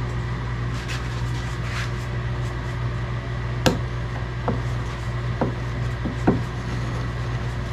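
Steady low hum with several sharp light taps and clicks, the loudest about halfway through, from hands working peel ply over a resin-wet carbon fiber layup.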